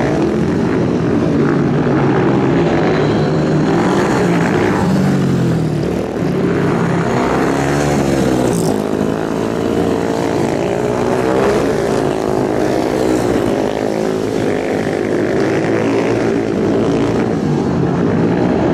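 Speedway motorcycle engine running at high revs, its pitch rising and falling again and again as the throttle is worked.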